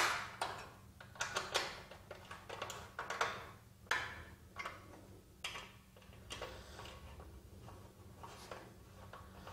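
Hex key working the bolts of an aluminium solar-panel mounting bracket: a run of irregular metal clicks and short scrapes as the key seats in the bolt heads and turns. The clicks are sharpest at the start and thin out over the second half.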